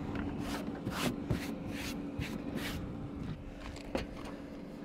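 Cooking gear being handled and moved about: six short rustling, scraping sounds in the first three seconds and a sharp click about four seconds in. Under them runs the steady low hum of the air fryer.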